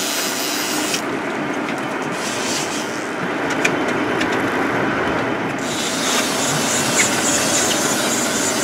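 Steady rushing noise of wind and sea water aboard a sportfishing boat at sea, with a couple of faint ticks.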